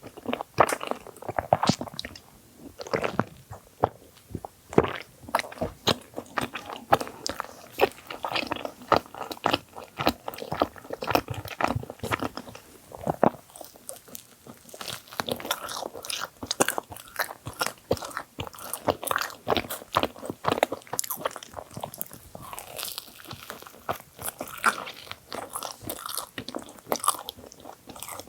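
Close-miked eating of a thick filled bagel sandwich: bites and steady chewing with many small irregular crunches and wet mouth clicks.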